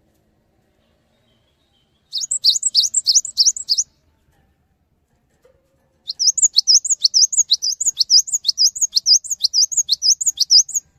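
Cinereous tit (gelatik batu) singing: two bursts of rapid, repeated high whistled notes, about four a second, a short run about two seconds in and a longer run from about six seconds until just before the end.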